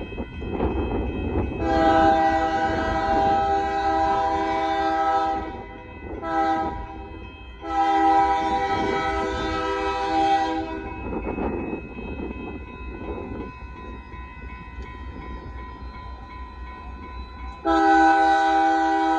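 Union Pacific freight locomotive's air horn sounding a chord: a long blast, a short one, another long one, then after a pause a further long blast near the end, over the low rumble of the approaching train.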